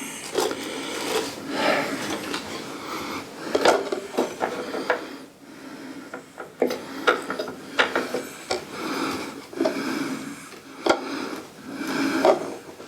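Hands handling and fitting telescope parts together: rubbing and scraping with irregular clicks and knocks, as the telescope is set onto its stand.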